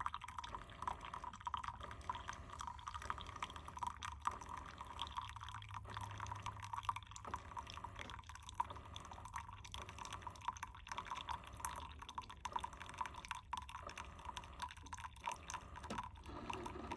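Drip coffee maker trickling freshly brewed coffee in a thin stream into a stainless steel travel mug: a steady patter of drips and splashing on the coffee's surface, with a low hum underneath.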